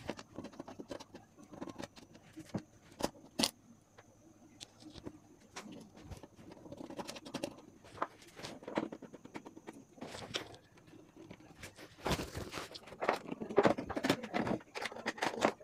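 Scattered clicks, taps and rustles of hands handling wire harnesses and plug-in connectors on an LED TV's mainboard, getting busier about twelve seconds in.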